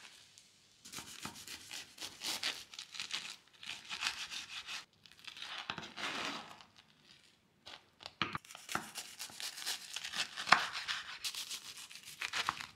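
Serrated knife sawing through the crisp, egg-fried bread crust of a Monte Cristo sandwich on a wooden cutting board: rapid crackly, scratchy strokes in several bouts with short pauses between them.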